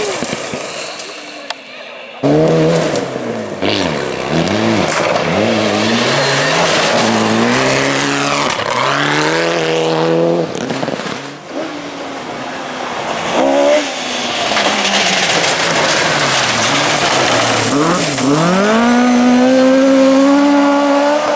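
Classic rally car engines revving hard, the pitch climbing and dropping repeatedly through gear changes as the cars are driven flat out on a stage, in a string of short shots that cut abruptly from one car to the next. Near the end an engine winds up and holds high revs.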